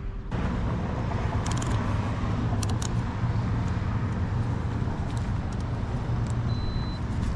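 Steady vehicle noise with a low rumble, such as traffic or an engine running close by. It starts and cuts off abruptly.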